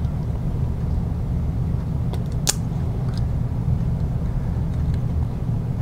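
Steady low background hum, with a few light clicks of a small screw and lock nut being fitted to a plastic bracket, the sharpest about two and a half seconds in.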